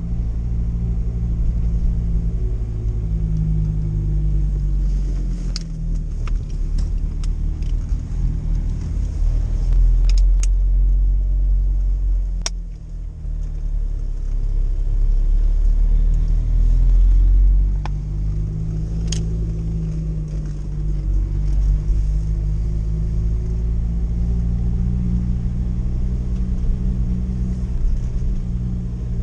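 UAZ van's engine running under way, heard from inside the cab, its pitch rising and falling several times as the van climbs and changes speed. A few sharp clicks or rattles stand out over the engine.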